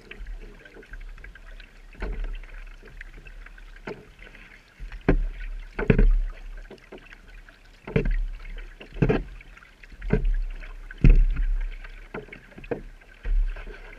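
Kayak paddle strokes from a Pelican Quest 100 sit-in kayak: the blades dip and splash in calm water about once a second, with sharper knocks and splashes on some strokes.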